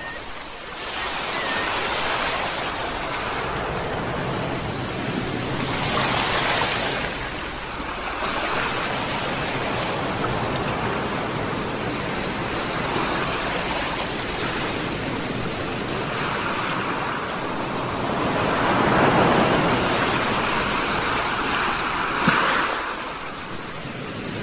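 Sea waves breaking and washing onto the shore, a continuous rushing surf that swells and eases every few seconds.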